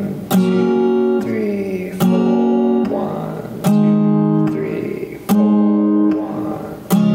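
Acoustic guitar with a capo at the sixth fret, strummed once per chord with each chord left to ring until the next: five full strums, about one every second and a half to two seconds.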